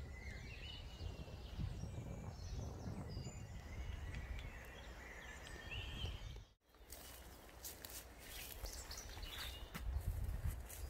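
Woodland ambience: faint birdsong over a low steady rumble, with a brief drop-out about two-thirds of the way through. Near the end come scattered rustles and snaps of footsteps through undergrowth.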